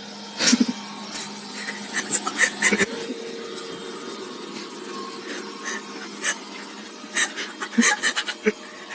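Robot vacuum cleaner running with a steady hum, with scattered sharp clicks and knocks.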